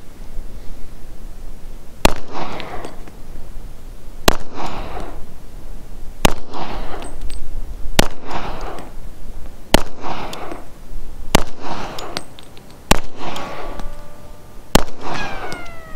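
Rock Island .40-calibre pistol fired eight times in slow aimed fire, a shot about every two seconds, each sharp bang followed by a short echo.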